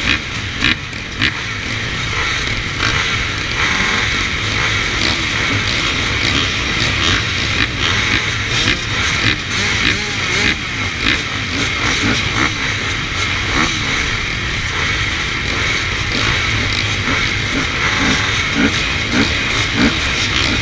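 A pack of enduro dirt bikes idling together on a start grid, with riders blipping their throttles in short revs that come more often in the second half.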